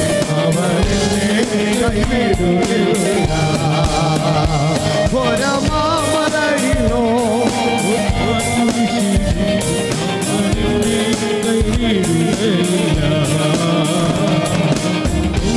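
Music of a worship song: instrumental accompaniment with sustained tones and a steady beat, and a singing voice.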